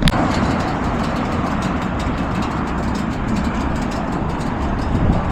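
A motorcycle engine running steadily with a deep rumble, starting abruptly.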